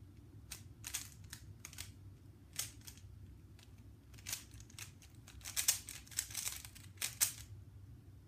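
3x3 Rubik's cube being turned by hand: irregular plastic clicking and clacking of the layers, with a quick flurry of turns about five to seven seconds in.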